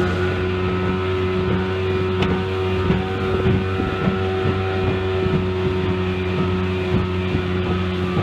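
Mercury 15 hp two-stroke outboard running at steady revs, driving a small aluminium boat along, with irregular knocks as the hull meets the chop.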